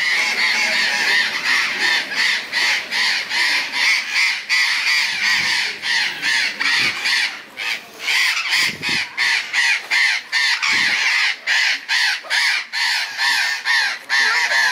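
A flock of parrots screeching and squawking loudly, many harsh calls overlapping in quick succession.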